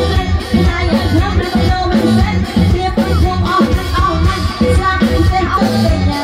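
Live band playing with a steady beat: a woman singing into a microphone over a drum kit and electric guitars.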